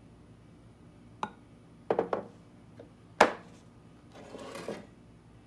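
Several knocks and clunks as a glass measuring cup of melted soft plastic is handled over an aluminium mold and set down on a wooden table; the loudest, a sharp clunk with a short ring, comes about three seconds in. A brief rustle follows.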